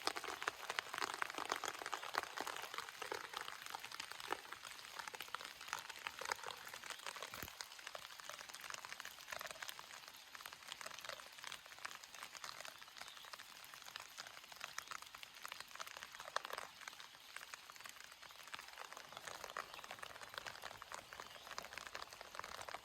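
Steady rain: a dense patter of many small drops, a little louder in the first few seconds, with one sharper drop about seven seconds in.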